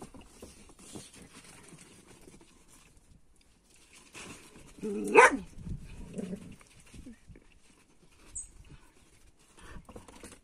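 Dogs playing on a dirt yard, one of them giving a single loud bark about five seconds in, followed by a shorter, softer one. Faint scuffling in between.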